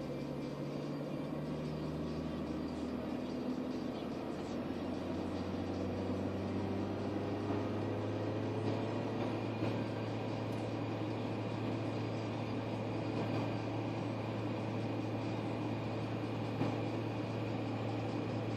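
Honda Civic engine and road noise heard inside the cabin as the car accelerates from about 50 to 80 km/h. The engine note rises in pitch over the first several seconds, then settles into a steady cruising drone.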